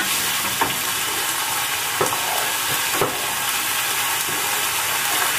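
Food sizzling in a pan on a gas stove while a wooden spoon stirs it, with three light knocks of the spoon against the pan.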